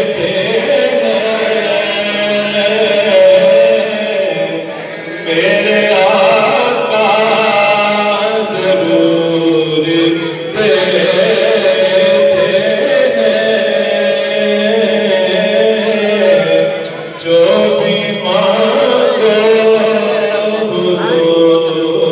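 A man's voice chanting a devotional naat recitation in long, melodic held phrases with ornamented bends, pausing briefly between phrases every five or six seconds.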